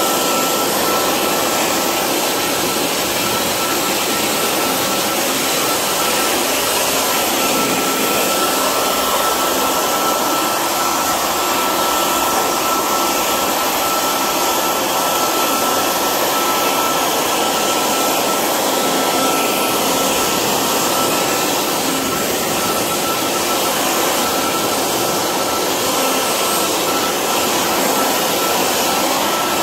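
Corded electric leaf blower running steadily at full speed, a rush of air with a constant high whine, blowing debris across the floor.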